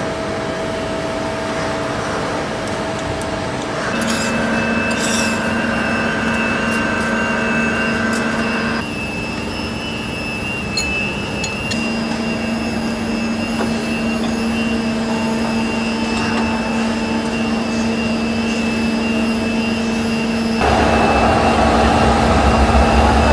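Steady machine-shop hum of CNC milling machines running, with a low drone and a thin high whine. A few light metallic clicks come around four to five seconds in, and the drone shifts abruptly several times.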